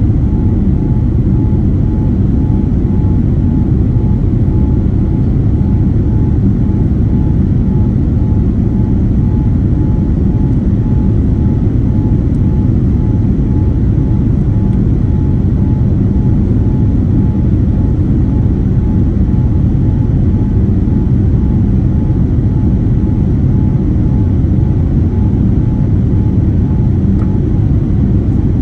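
Steady Boeing 787-9 cabin noise, a constant low rush of engine and airflow. A faint pulsing tone rides above it and stops shortly before the end.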